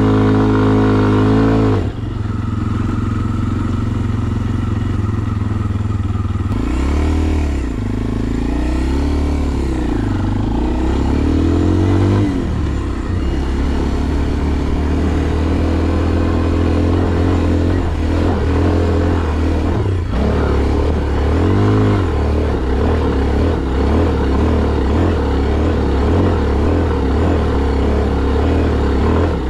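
Kawasaki KLX230R dirt bike's air-cooled single-cylinder four-stroke engine being ridden hard up a dirt hill. The revs drop sharply about two seconds in, rise and fall with the throttle for several seconds, then hold a steadier note with small surges.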